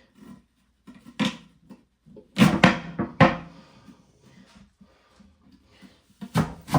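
Clunks and sharp knocks of a press-down apple corer-slicer being set over an apple and pushed down through it, with a cluster of the loudest knocks a little past the middle and more near the end.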